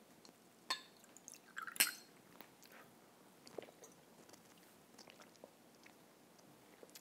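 Quiet room tone with a few soft clicks and knocks, the loudest about two seconds in, and small wet sounds of someone drinking from a glass.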